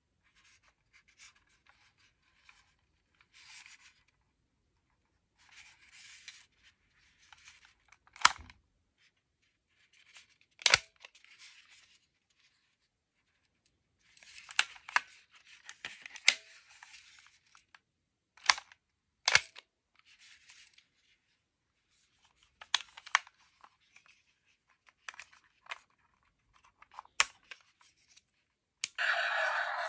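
Plastic Lieflasher toy replicas handled: soft rustling and scattered sharp plastic clicks and snaps as the devices are flipped open and their parts moved. About a second before the end, a loud electronic sound starts, thin like one from a small toy speaker.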